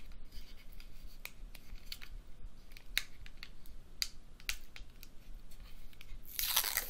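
Fingernails picking at and peeling leftover protective plastic film off a webcam: scattered small clicks and scratches, then a longer peeling rip near the end.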